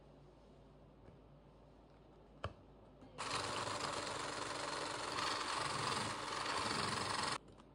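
A click, then a small electric kitchen motor runs steadily for about four seconds before cutting off abruptly.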